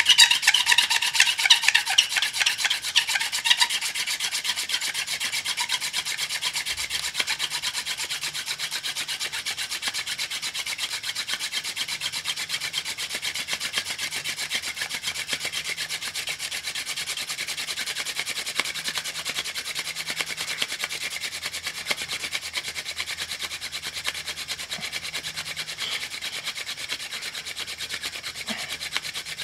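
Friction-fire hand drill: a wooden spindle spun back and forth between the palms, its tip grinding into a fireboard with a fast, continuous wood-on-wood rubbing and scraping. It is louder for the first few seconds, then settles to a steady level.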